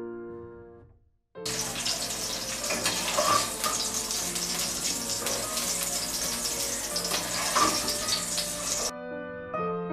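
Hot oil in a wok sizzling and crackling, starting about a second and a half in and cutting off shortly before the end, over soft background music.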